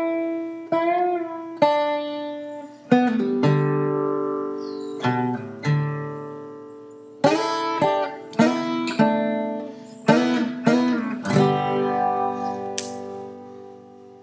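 Intro music: a plucked string instrument plays a melody of separate ringing notes, then ends on a chord that rings out and slowly fades.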